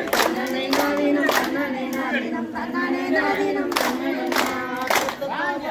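A group singing a kummi folk song together, with sharp hand claps keeping the beat in runs of about two claps a second.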